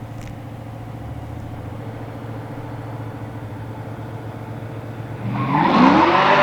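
Low steady engine rumble, then about five seconds in two race cars, a BMW 435i and a sixth-generation Camaro with a V8, launch and accelerate hard, their engine notes rising quickly and getting much louder.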